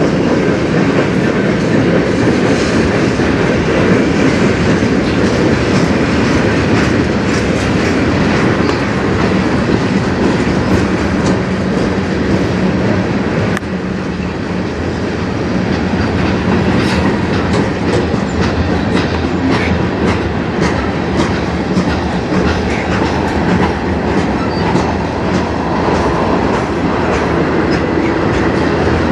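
Freight train cars rolling past close by: a steady rumble of steel wheels on rail with repeated clicking as the wheels pass over the track.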